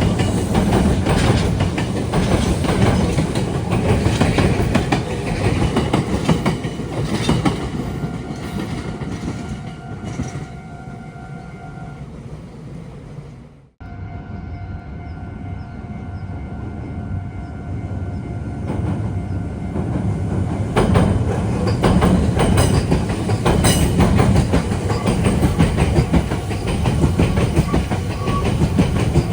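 Meitetsu electric trains passing with wheels clacking on the rails. The train noise fades away by the middle, where a steady two-tone level-crossing warning bell keeps ringing. A short cut-out comes just past the middle, and another train passes loudly through the last third.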